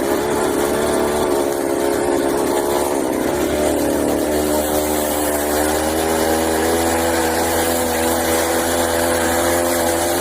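Homelite chainsaw two-stroke engine on a friction-drive bicycle, running with its muffler baffle removed. Its pitch wavers for the first few seconds, then holds steady. It runs on a carburettor that still needs tuning.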